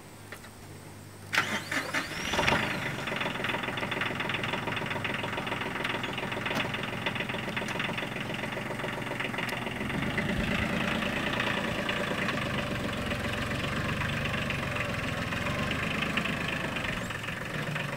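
Compact farm tractor engine starting about a second and a half in, with a brief rev as it catches, then running steadily. It gets louder about ten seconds in.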